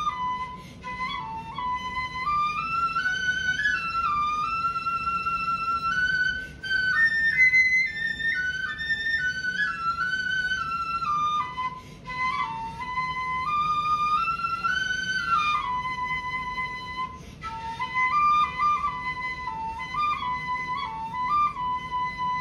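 Shinobue, the Japanese bamboo transverse flute, playing a solo melody that steps and slides between notes, with a few short breaks for breath between phrases.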